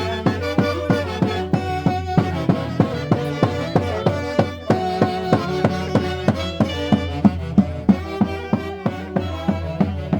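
Andean santiago dance music from Peru's Mantaro Valley: a violin melody played over a steady, evenly spaced drum beat.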